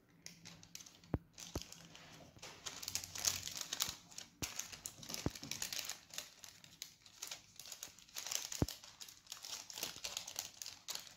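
Baking paper crinkling and rustling as it is folded and creased by hand around an upturned glass to shape a cupcake liner, with a few sharp clicks mixed in.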